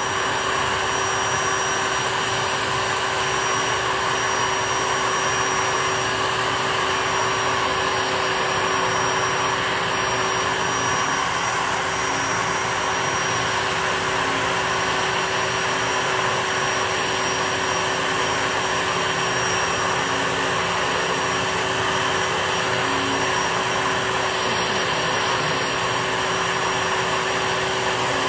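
Power drill running steadily under load, pre-drilling a hole into steel for a Screw Blunt Tip stud. Its motor gives an even whine with no change in speed.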